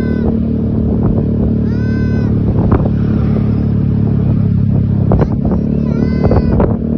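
A bus engine running with a steady low drone, broken by three short high-pitched calls, at the very start, about two seconds in and near the end, and by a few sharp knocks.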